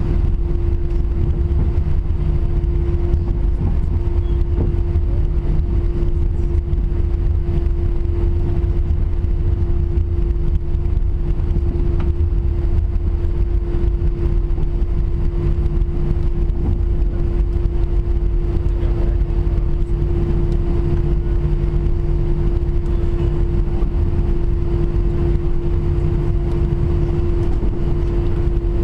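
Airbus A320-200 cabin noise: the jet engines running steadily at low power, a constant hum over a deep rumble, with no rise in level or pitch, as when taxiing.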